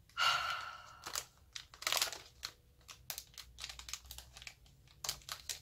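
Crinkling and rustling of wrapping as a small parcel is unwrapped by hand, with light taps and clicks; the loudest rustle comes right at the start and another about two seconds in.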